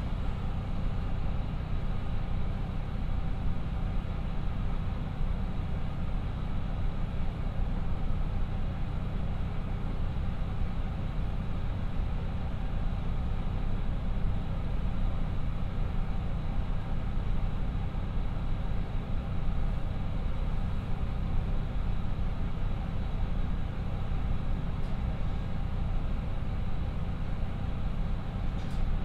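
A KiHa 54 diesel railcar's twin Niigata DMF13HS engines idling steadily while the train stands still, heard inside the passenger cabin. A couple of short clicks come right at the end.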